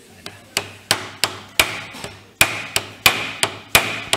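Red mallet repeatedly striking a screwdriver held against a Bridgeport quill housing's pinion shaft hub, about three blows a second with a short pause before the middle, each blow with a brief ring. The hub is tight and is being driven loose.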